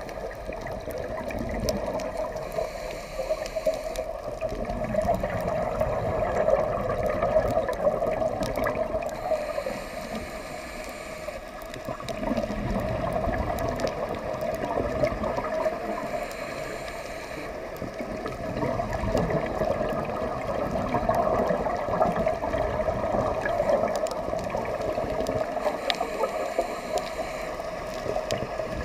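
Underwater scuba breathing: regulator exhalations bubbling and gurgling, swelling and fading every few seconds over a steady underwater rush.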